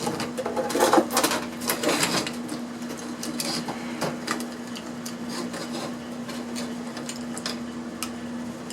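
Irregular clicks and rattles of electrical wire being cut and handled, dense for the first two seconds and sparser after, over a steady low hum.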